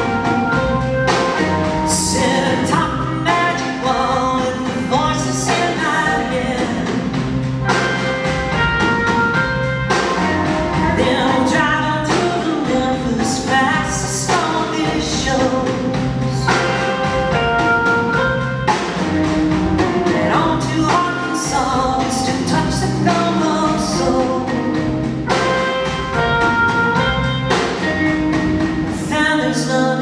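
Live band performance with a woman singing lead over drums, bass, guitars and keyboard, the drum kit keeping a steady beat.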